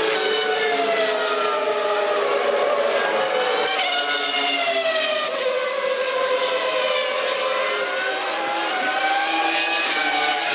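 Formula One cars' 3.0-litre V10 engines at racing speed, their high engine notes rising and falling again and again as they accelerate, shift gears and brake, with more than one note overlapping at times.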